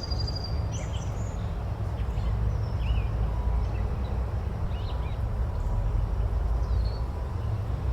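Forest ambience: scattered short bird chirps over a steady low rumble.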